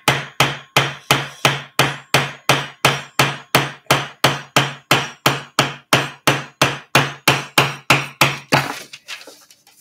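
Hammer striking the handle of a wood chisel in a steady run of sharp knocks, about three a second, chopping out a notch in a wooden block. The blows stop shortly before the end.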